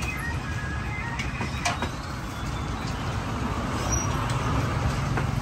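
A motor vehicle's engine rumbling, growing a little louder toward the end, with a few light clicks.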